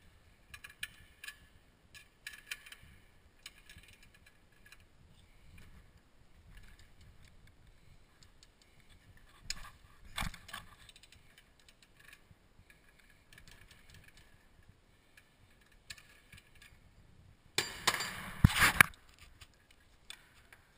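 Metal hand tools clicking and rattling against a catalytic converter manifold held in a bench vise as its O2 sensors are loosened with a long wrench and socket: scattered light clinks, two sharper knocks about halfway through, and a louder rattling scrape lasting about a second near the end.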